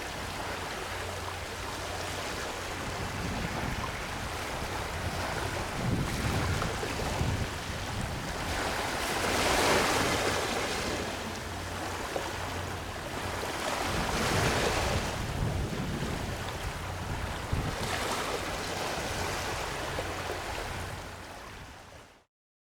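Small waves washing onto a sandy river-mouth beach near high tide, a wave breaking and swelling up every four seconds or so over a steady wash. The sound fades out near the end.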